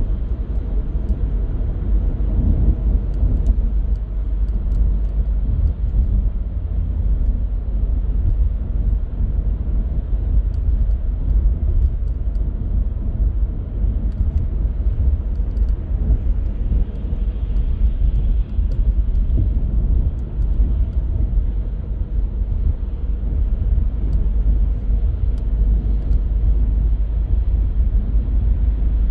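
Car driving along city streets: a steady low rumble of road and engine noise.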